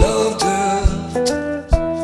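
Background music with a steady beat, about two strikes a second, under a pitched melody.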